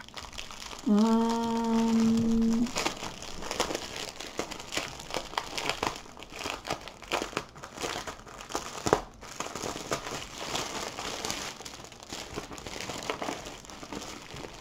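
Clear plastic wrapping crinkling and crackling as hands handle and unwrap a bundle of bagged diamond-painting drills rolled around a canvas. About a second in, a short, steady hummed note lasts almost two seconds.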